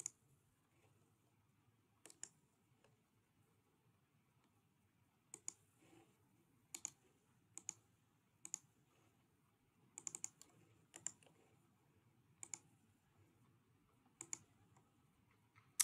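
Computer mouse clicking: about a dozen short, sharp clicks spaced irregularly, a few in quick pairs like double-clicks, over near silence.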